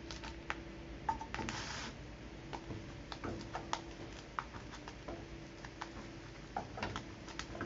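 Black plastic slotted spatula pressing and shifting a folded tortilla in a frying pan: scattered light clicks and scrapes against the pan, over a faint steady hum.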